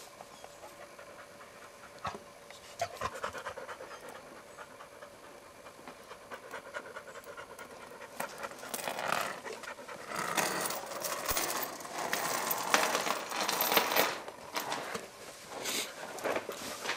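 A yellow Labrador panting with its mouth open, a quick run of breaths that turns loud about halfway through.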